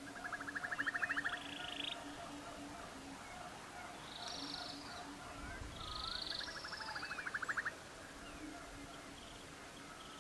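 Nature soundscape of birds calling: two fast trills about a second long, buzzy calls and short gliding chirps, over a low call pulsing several times a second that fades out about three seconds in.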